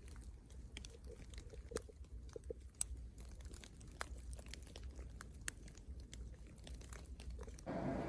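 Faint, irregular small clicks and crunches, several a second, with no steady rhythm. Just before the end a steadier hiss comes in and the level rises.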